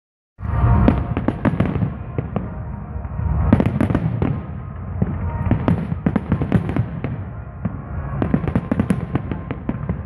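Fireworks display: rapid volleys of shell bursts and bangs come in clusters every couple of seconds over a continuous low rumble. The sound starts abruptly about half a second in.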